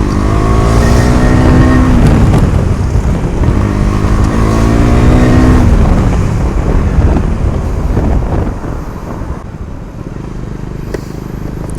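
KTM Duke motorcycle engine running through an exhaust with the dB killer removed, accelerating twice with a rising pitch, each pull dropping off about 2 and 6 seconds in. It then runs quieter at lower revs from about 8 seconds in.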